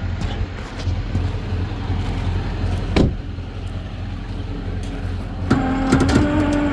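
Rollback tow truck's diesel engine running with a steady low rumble, with a sharp click about halfway through. Near the end a louder steady hum sets in.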